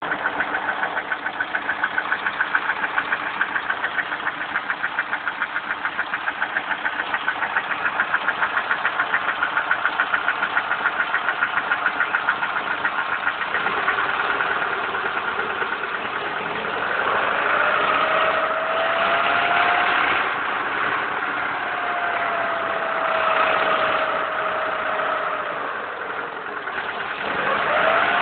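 Lada Priora engine running with an even, rhythmic metallic knock whose rate follows engine speed, then revved up and down from about halfway through. The owner suspects faulty hydraulic valve lifters after a piston replacement.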